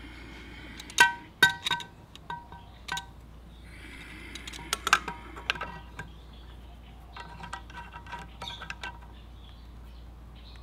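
Steel clutch holder tool clinking against a Yamaha Vino 125 scooter's clutch bell as it is fitted, in three bunches of sharp metal-on-metal clinks, each ringing briefly; the loudest two come about a second in.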